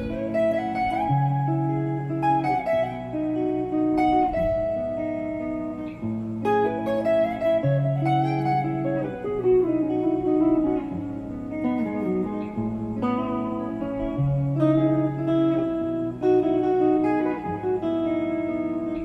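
Guitar music: a plucked melody over low bass notes, some notes sliding in pitch.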